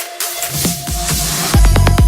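Electronic dance music played loud through event loudspeakers during a speaker test. The bass beat drops out for a hissing noise sweep, then the heavy kick-drum beat comes back in about one and a half seconds in.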